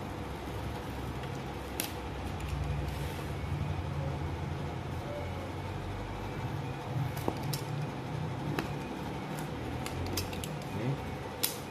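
Snap-off utility knife blade being drawn along a steel ruler, cutting a thin wood sheet: faint scraping with scattered small clicks, most of them in the second half, over a steady low hum.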